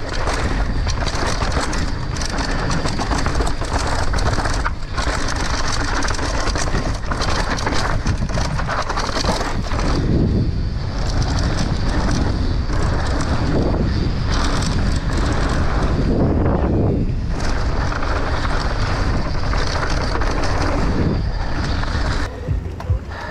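Mountain bike descending a rough dirt jump trail at speed: tyres running over dirt and loose gravel, the bike rattling and knocking over bumps and landings, with wind rushing over the camera microphone. The noise drops briefly near the end as the bike slows.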